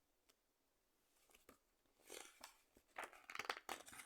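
Faint paper rustling, typical of a picture-book page being turned, in a few short crinkly bursts in the second half after near silence.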